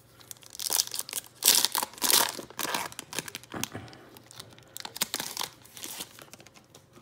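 Foil wrapper of a Donruss Optic basketball card pack being torn open and crumpled in the hands: an irregular run of crinkling and tearing crackles, loudest in the first half.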